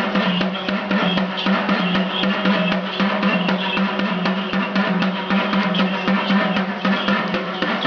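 Dhol drums played in a fast, steady rhythm of rapid repeated strokes over a sustained low tone.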